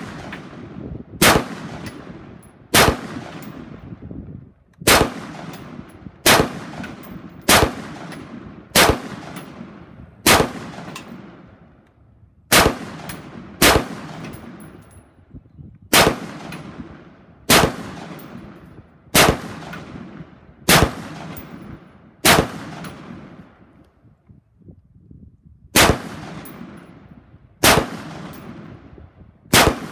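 Brownells XBRN16E1, a retro XM16E1-style 5.56 mm rifle, fired semi-automatically in slow aimed single shots, about eighteen in all, one every second or two with a longer pause about two-thirds of the way through. Each sharp report is followed by a short echo that dies away.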